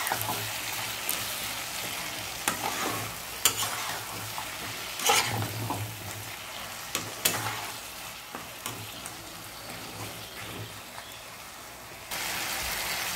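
Potatoes, onion and tomato frying in mustard oil in a wok, sizzling steadily while a metal spatula stirs them, with scrapes and clicks of the spatula against the pan. The sizzle eases off later and jumps back up suddenly near the end.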